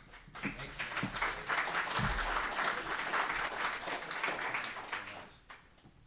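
Audience applauding, swelling in the first second or so and dying away about five seconds in.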